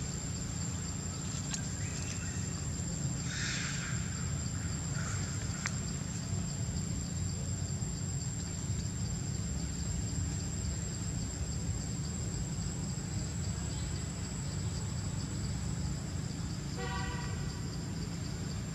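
Steady outdoor background: a low rumble under a constant high-pitched whine, with a few faint rustles in the first few seconds and a short horn-like toot near the end.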